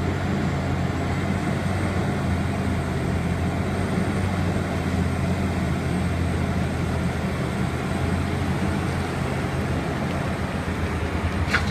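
Liebherr 984 hydraulic mining excavator's diesel engine running steadily under load while digging and swinging: a steady low drone.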